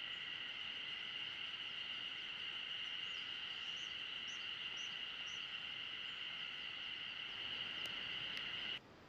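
Steady, high-pitched chorus of insects with no break in it, joined by a few faint short bird chirps in the middle. The chorus cuts off abruptly just before the end.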